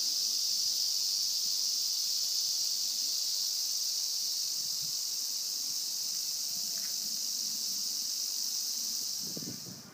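Cicadas buzzing in a steady, high-pitched chorus that fades out near the end.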